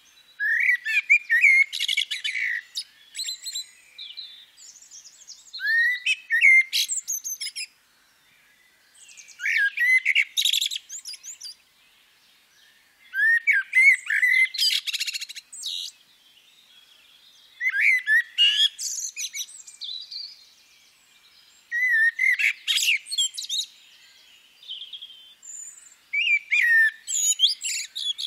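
A songbird singing a run of varied, warbling phrases, each two to three seconds long, with short pauses between them, from a birdsong recording.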